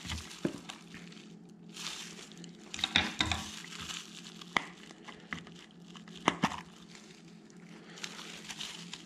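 A bag and its packing being handled and pulled open, crinkling and rustling, with a few sharp clicks.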